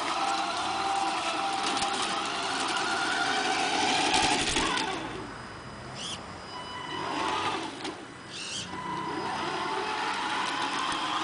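Electric drive motor and gearbox of a Tamiya Knight Hauler RC tractor truck whining, the pitch rising and falling several times as it speeds up and slows down, over a rough rattle of its tyres on brick paving.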